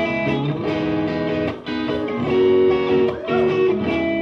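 Guitar playing chords with no voice, the chords struck about once a second and left ringing, with a brief drop about one and a half seconds in.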